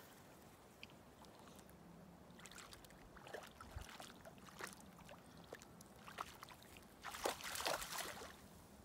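A dog wading in shallow lake water, its legs sloshing and splashing, with a louder flurry of splashing about seven seconds in as it lunges nose-first into the water.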